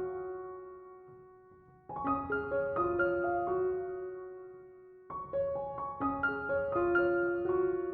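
Background piano music: gentle phrases of single notes, each phrase fading before the next begins, about two and five seconds in.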